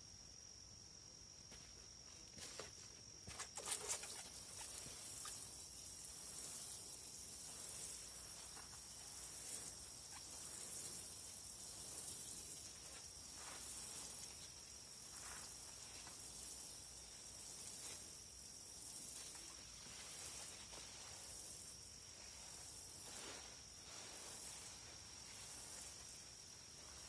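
Water sprinkling from a watering can's rose onto soil and seedlings: a faint hiss that swells and fades every couple of seconds, starting a few seconds in after a couple of light knocks. A steady thin high tone runs underneath throughout.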